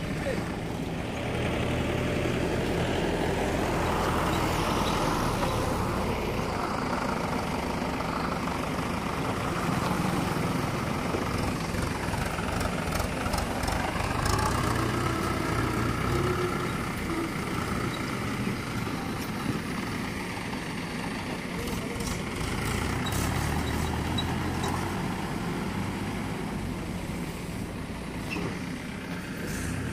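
Mahindra 475 DI tractor's diesel engine running steadily as it pulls a trailer past close by, then drawing away, with some rattling along the way.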